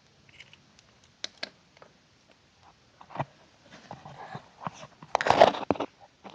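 Handling noise: scattered small clicks and knocks, then a rustling scrape, and a louder crunching rustle about five seconds in.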